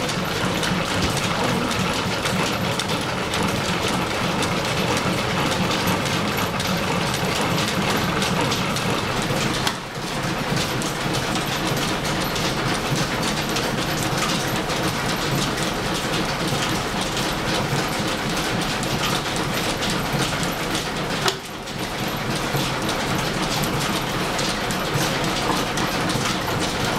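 An 1884 Brown & Sharpe milling machine driven by steam-powered line shafting and belts, running as it machines a gear: a steady, dense mechanical clatter that dips briefly twice, about ten seconds in and again about twenty-one seconds in.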